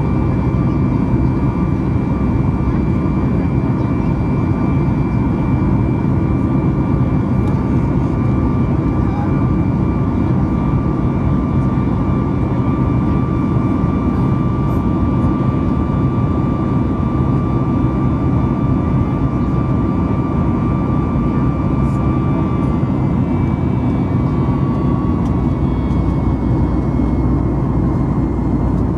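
Cabin noise of a Boeing 737 MAX 8 in flight, heard inside the cabin at a window seat beside its CFM LEAP-1B engine: a steady, loud rumble of engine and airflow. Over it runs a thin high whine that fades out about three-quarters of the way through.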